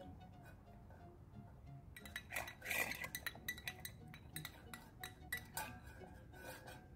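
Light clinks and scrapes of a spoon and stainless steel dog bowls during eating, with a louder scrape about two and a half seconds in and quick clinks through the second half.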